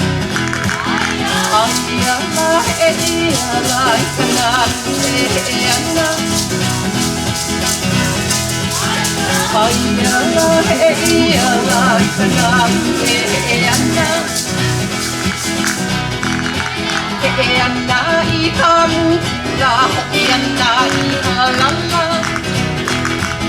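Music with a plucked string instrument and a fast rattling shaker rhythm; the shaker thins out about two-thirds of the way through.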